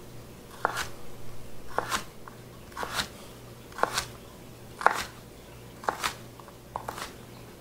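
Kitchen knife dicing red bell pepper on a cutting board: slow, even cuts about once a second, each a short sharp knock of the blade through the pepper onto the board.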